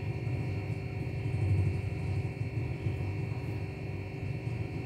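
Steady low background hum with no distinct sounds on top of it.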